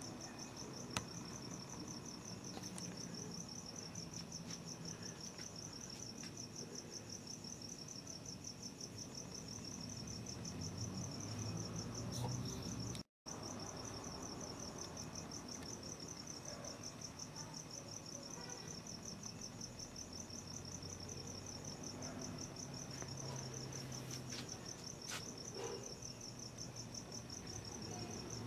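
Crickets chirping in a steady, fast-pulsing high trill, breaking off for a moment about halfway through.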